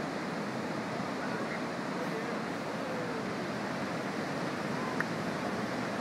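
Steady rush of ocean surf breaking on a sandy beach, with faint voices in the distance and a single brief click near the end.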